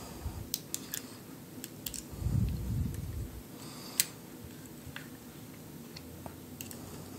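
Scattered small clicks and scrapes of a punch prying the locking block up out of a Glock pistol's frame, with one sharper click about four seconds in and a dull handling rumble a little before it.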